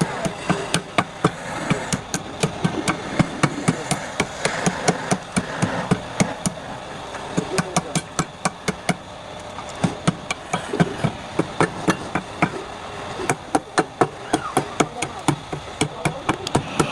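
Rapid, irregular hammering: many sharp knocks, several a second, with brief pauses.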